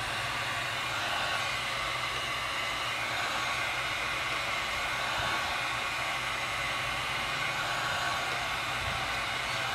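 Heat gun blowing steadily, a constant airy rush with a low hum underneath, as it warms vinyl tint film to make it pliable.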